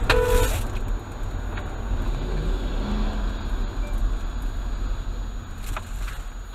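A short car-horn honk, about half a second long, right at the start. After it comes the steady low rumble of the car's engine and road noise heard inside the cabin.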